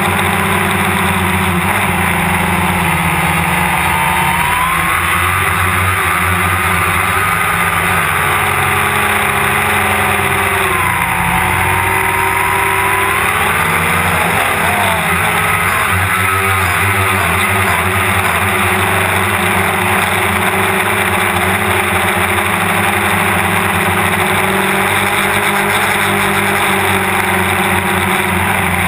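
DJI Phantom quadcopter's electric motors and propellers buzzing loudly, heard up close from the GoPro mounted on the drone. The whine rises and falls in pitch several times as the motors change speed in flight.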